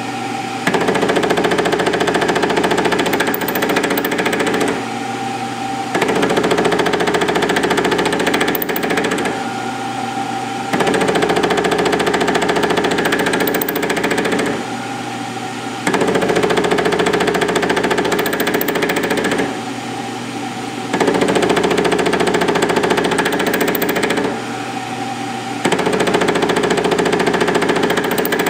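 Milling machine running with an offset boring head cutting a steel drill-rod cam blank. There are six cutting passes of about four seconds each, with brief quieter gaps between them where only the spindle's steady hum remains.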